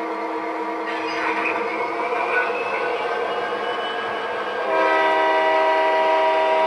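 Sound system of an MTH RailKing O-scale SD45 model diesel locomotive: the engine sound running, then a loud, steady horn blast that starts about two-thirds of the way in and holds.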